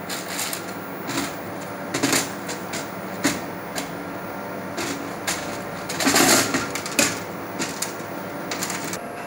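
Irregular plastic clicks and clatter as the cuvette container of a Cobas Integra 400 plus analyser is handled and slid back into its slot, the loose plastic cuvettes inside rattling. The loudest clatter comes about six seconds in.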